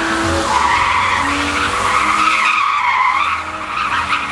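BMW saloon drifting, its tyres squealing in a wavering screech over the engine running hard.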